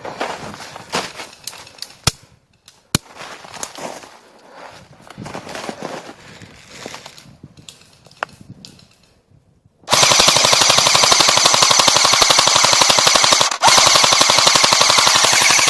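Airsoft gun firing on full auto: a long, loud, rapid string of shots starts about ten seconds in and runs on, with one short break a few seconds later. Before it there is only quieter scattered noise and two single sharp pops.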